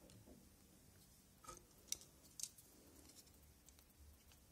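Near silence, with a few faint, short clicks and taps of small objects being handled about halfway through.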